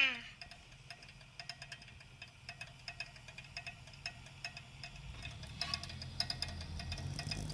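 Faint, rapid, irregular clicking from an EVGA GeForce GTX 960 graphics card, growing denser near the end, with a low hum coming up about five seconds in. The clicking went away once a new power supply was fitted, which points to a power-supply fault rather than the fan.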